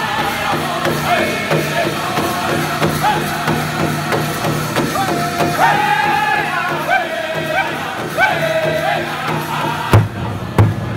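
Powwow drum group singing a chicken dance song in high, sliding voices together, with hardly any drumming at first. Hard beats on the large powwow drum come back in near the end.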